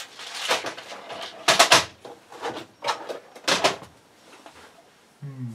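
Rummaging in a cardboard box of tools: four or five short rustles and knocks as items are shifted about and lifted out, dying down after about four seconds. A brief voice sound right at the end.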